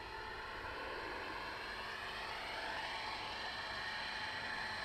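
Electric 600-size radio-controlled helicopter (Align T-Rex 600E under a scale MD500E body) flying low, its motor and rotor whine rising in pitch and getting louder about two seconds in.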